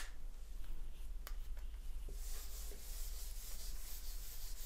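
Whiteboard eraser wiping across a whiteboard: a steady rubbing hiss starting about two seconds in, after a couple of light clicks.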